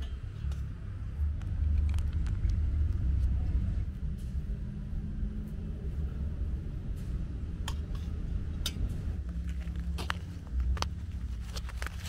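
A steady low rumble on the microphone, with light clicks and scrapes of a metal spoon against a stainless steel plate as butter is spread on a slice of bread, most of them between about seven and eleven seconds in.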